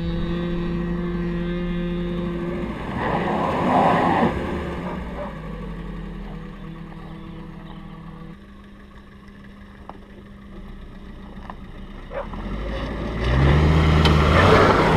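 A motor running with a steady hum, a rushing swell about three seconds in, and, near the end, a louder rise in which the pitch climbs like an engine revving.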